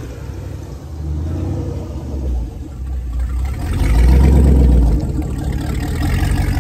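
Rebuilt Crusader 6.0L LQ4 V8 marine engines running on a test stand, the exhaust discharging through wet exhaust hoses. The sound swells, louder and deeper, for about a second around four seconds in, then settles back to a steady run.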